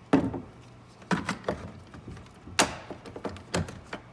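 Hard plastic clicks and knocks from a cordless power tool, its battery and battery adapter being handled. There are about six sharp strikes, some with a dull thud, with no motor running.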